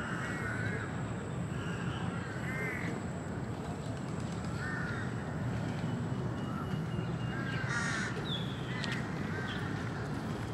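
Birds calling repeatedly, short arched calls every second or two, over a steady low rumble.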